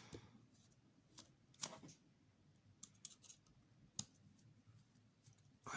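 Faint, scattered clicks and light scrapes of small plastic and metal RC truck parts being handled as a screw is started into the rear bumper assembly, with a sharper click about four seconds in.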